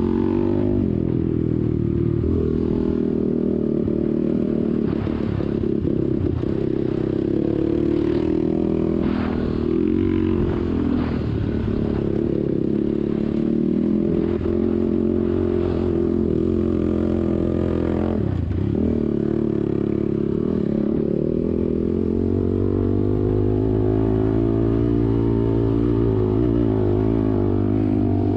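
ATV engine running hard under riding load, its revs dropping and climbing back several times as the throttle is let off and reapplied, the deepest dip a little past the middle.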